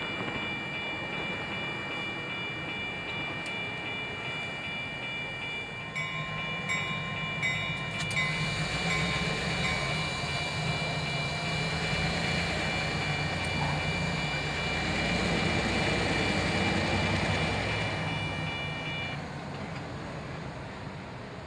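EMD diesel switcher locomotive running and moving with a train, its engine hum growing stronger about a third of the way in and the rolling noise building to a peak before easing off. A steady high-pitched tone sounds over it and stops shortly before the end.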